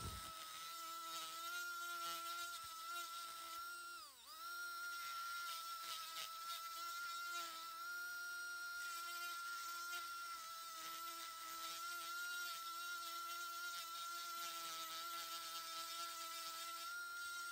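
Old Dremel 370 rotary tool running at high speed with a coarse spherical Saburr ball bit carving into pine knot, a steady thin whine. About four seconds in, its pitch drops sharply and climbs straight back as the motor nearly stops and spins up again. The owner thinks a bearing in this tool is going out.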